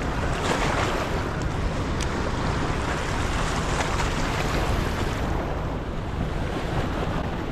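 Floodwater rushing and churning below an open dam spillway, a steady roar. Wind buffets the microphone.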